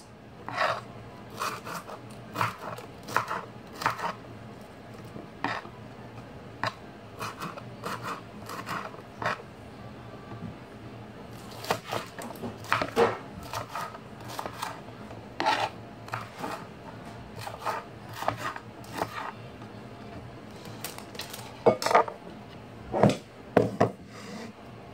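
Serrated kitchen knife cutting green bell pepper on a wooden cutting board: uneven knocks of the blade on the board, about one every half second to a second, with a few louder knocks and clinks near the end.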